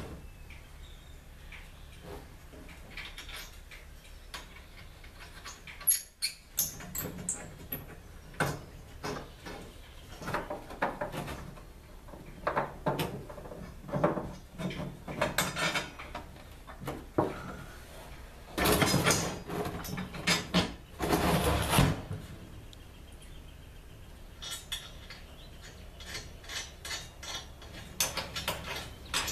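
Metal clinks, taps and rattles of a wrench and carriage bolts as wooden handles are bolted onto a wheelbarrow tray. They come in irregular clusters, with a denser run of rapid clicking about two-thirds of the way in.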